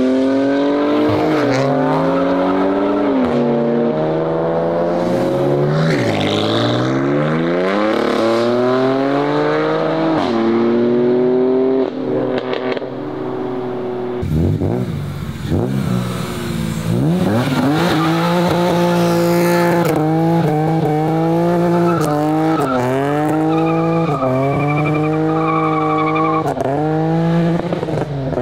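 Performance BMW engines accelerating hard one after another, the engine note climbing and dropping in pitch at each gear change. In the second half an engine is revved in quick, repeated rises and falls.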